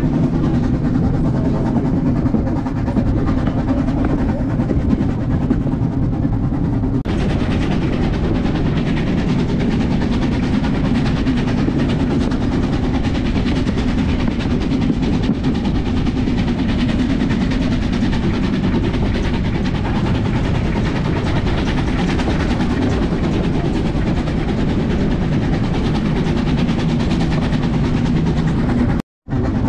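Narrow-gauge steam train running, a steady dense rumble of the train on the move. The sound turns brighter about seven seconds in and drops out for a moment near the end.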